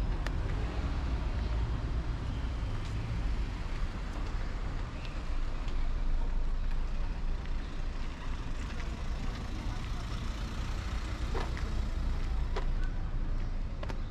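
City street traffic: the steady rumble of passing cars and heavier vehicles, with a few sharp clicks near the end.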